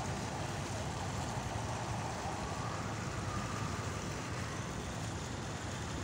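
Steady rush of a garden fountain, its water jet splashing down into a rock-built basin, over a low, even rumble.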